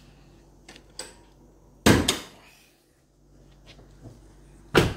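Two short, loud thumps about three seconds apart, with a few faint clicks between them.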